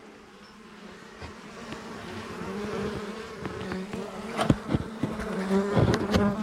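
A honeybee colony buzzing, a steady hum that grows louder after the first second or so. A few sharp knocks and clicks come about four and a half and six seconds in.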